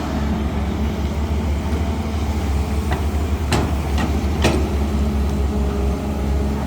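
CAT hydraulic excavator's diesel engine running with a steady low drone, with four sharp metallic knocks a few seconds in.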